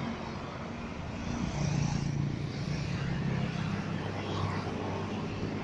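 Road traffic passing: engines of motorcycles and cars going by, with a low engine drone that swells about one and a half seconds in and then eases off.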